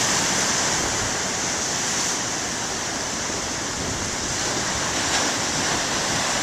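Big ocean waves breaking and washing up on the shore: a continuous, fairly loud rush of surf that eases a little in the middle and builds again.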